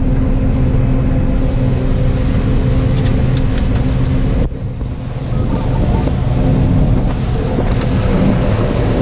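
Steady drone of a John Deere 9570 combine's engine and threshing machinery, heard from inside the cab while harvesting corn. About halfway through the sound breaks off abruptly, dips, and picks up again slightly rougher.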